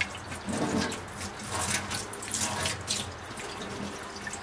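Water running from a kitchen tap into the sink as something is quickly rinsed under it.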